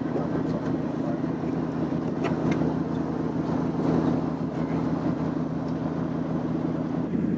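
A work boat's engine running steadily, heard from on board as an even, unbroken hum.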